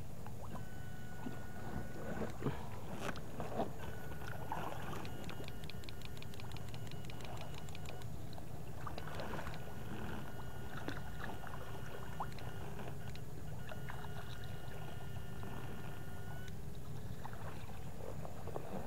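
Electric fish stunner giving a thin high-pitched whine that switches on briefly at the start and again from about four seconds in until near the end, with a fast even ticking in the middle, over steady sloshing of water and scattered splashes from wading.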